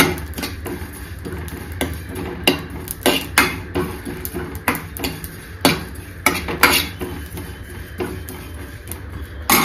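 Steel ladle scraping and clinking against a dry metal kadhai as cumin seeds are stirred and roasted without oil: irregular sharp clicks and scrapes, with a low steady hum underneath.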